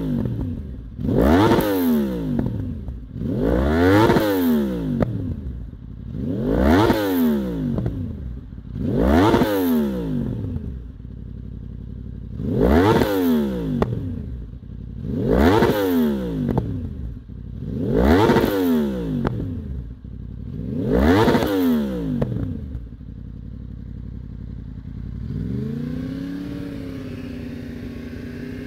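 Yamaha R1's inline-four engine free-revved through an Akrapovic carbon exhaust, about eight sharp revs two to three seconds apart, each rising and falling in pitch. It then settles to idle, with one gentle rev near the end.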